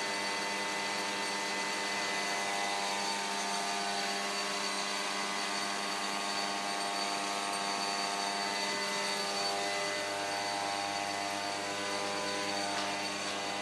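Syngas burner flame jetting steadily from a pipe nozzle, a continuous rushing noise, with a steady machine hum of even pitch running underneath, as from a motor or blower.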